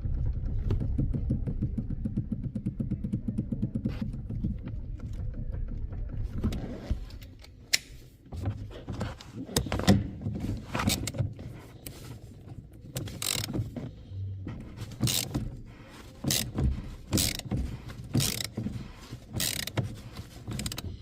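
A Hyundai HB20 with a low steady rumble, then a run of irregular knocks and clicks, one or two a second, from its steering: the steering noise that turned out to need only an adjustment.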